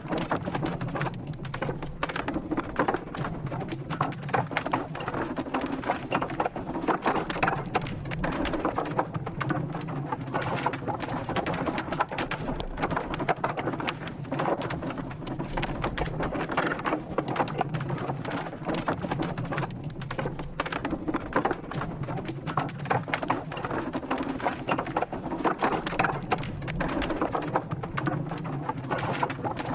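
Wooden wheel rotating: a continuous low rumble thick with small clicks and knocks, swelling and easing unevenly.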